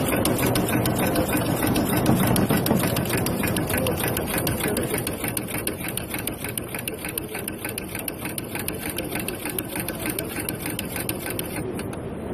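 Salli pearl-attaching machine running, its punching head setting pearls onto lace with a rapid, even run of clicks.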